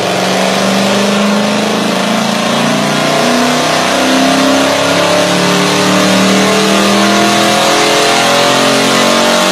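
Ford Mustang GT's 4.6-litre V8 at full throttle on a chassis dyno, loud, its revs climbing slowly and steadily through one long pull.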